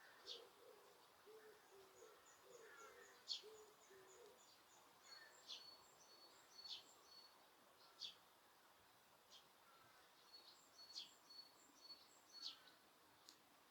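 Wild birds calling faintly in a park: repeated short, sharp high-pitched call notes throughout, with a low series of hoot-like notes in the first four seconds.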